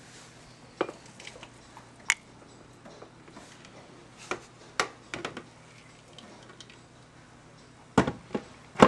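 Scattered clinks and knocks of a blender jar and drinking glasses being handled and tapped together while a thick smoothie is poured, with a louder cluster of knocks near the end.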